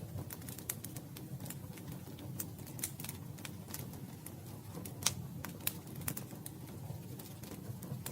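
Campfire crackling: irregular sharp pops and snaps from the burning wood over a low, steady rumble of the flames, with the sharpest pops about five seconds in.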